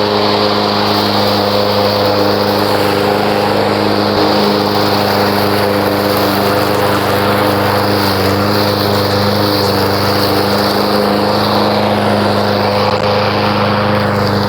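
Troy-Bilt gas walk-behind lawn mower engine running steadily at a constant speed while mowing grass.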